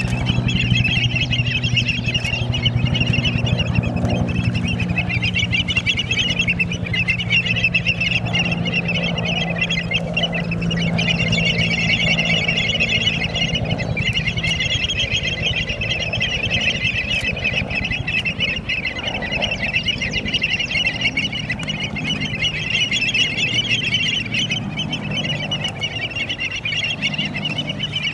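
A large flock of birds calling all at once in a dense, unbroken chatter, with lower calls rising and falling among them and a steady low hum underneath.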